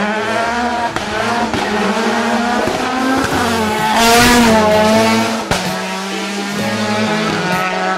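Mazda 3 MPS hillclimb car's 13B twin-turbo rotary engine revving hard as the car races past, its pitch rising and falling through the gears, with some tyre squeal. It is loudest about four seconds in, as the car passes closest.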